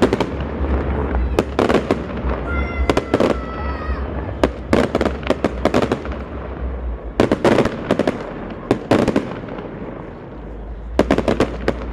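New Year's fireworks going off in several rapid volleys of sharp bangs and crackles, with gaps between the clusters. A high steady whistling tone sounds for about a second around three seconds in.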